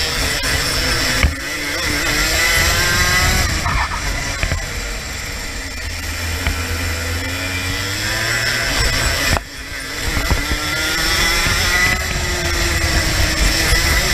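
Racing kart engine heard onboard at race pace, its pitch rising and falling as the kart accelerates and slows through the corners, with two sudden brief drops, about a second in and about nine seconds in.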